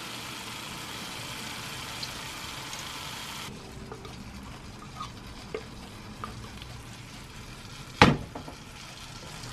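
Spaghetti and red sauce sizzling lightly in a hot frying pan while being stirred, a steady hiss that gets quieter about three and a half seconds in. A few light utensil clicks, and one sharp knock of the spoon against the pan near the end.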